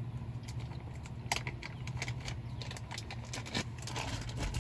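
Light clicks and crackles of a small plastic package being handled and opened as a replacement HVAC knob is taken out, with two sharper clicks, over a steady low hum.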